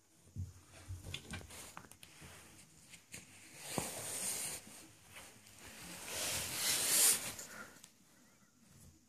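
A cat's paws reach under a door, batting a small ball with a few light knocks on the floor and door, then two longer rustling scrapes, the second the loudest.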